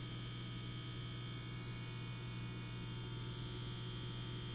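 Steady low electrical hum with a faint high whine above it, unchanging throughout.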